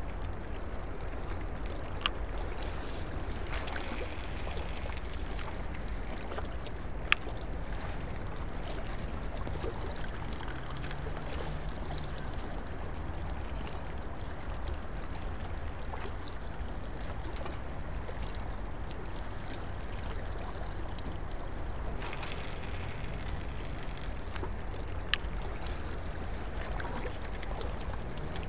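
Steady low rumble and hiss of waterside background noise, broken by three short sharp clicks, the loudest about seven seconds in.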